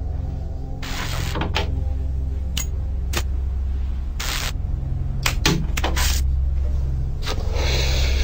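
A steady low drone from a film soundtrack, with short bursts of hiss scattered through it, several in quick succession around five to six seconds in and a longer one near the end.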